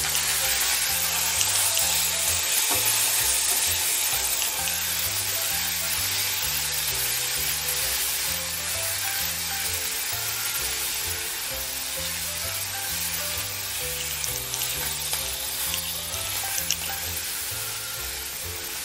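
Chopped onions sizzling in hot oil in a metal kadai while a spatula stirs them through, the frying slowly growing a little quieter. Background music with a repeating bass pattern runs underneath.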